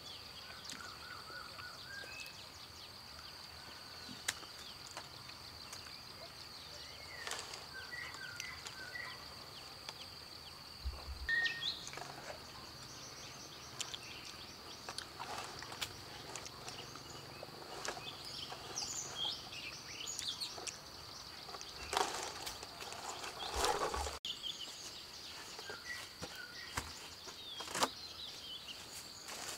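Rural outdoor ambience: a steady high-pitched insect drone with scattered bird chirps, and a few brief rustles and knocks of handling.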